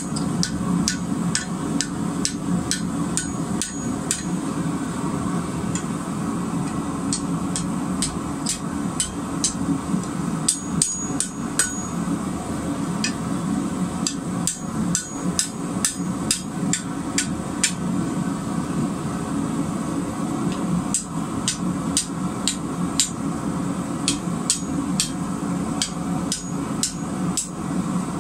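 Hand hammer striking a red-hot steel bar on an anvil, in irregular runs of blows about two a second, some leaving a brief high ring, as the end of the bar is curled into a scroll. A steady low hum runs underneath.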